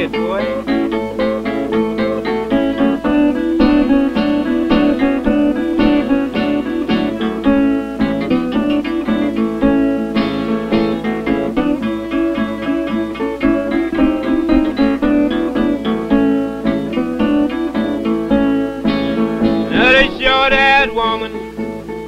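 Instrumental break on a 1933 country blues 78 rpm record: guitars picking a busy, steady accompaniment between sung verses. The sound is band-limited, with no highs above the old recording's range.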